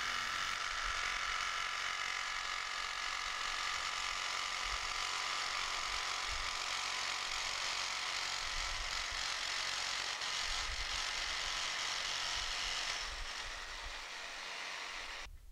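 Electric jigsaw cutting thin 20-gauge copper sheet, the blade running steadily through the metal. Near the end it eases a little, then cuts off abruptly.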